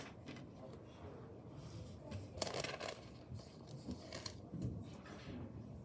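Sheets of paper rustling and sliding on a desk as they are handled and stacked, in irregular bursts with the loudest rustle about two and a half seconds in.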